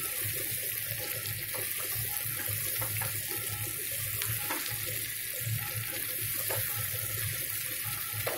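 Chopped okra and onion frying in hot mustard oil in a kadhai: a steady sizzling hiss, with a few light scrapes and taps of the spatula.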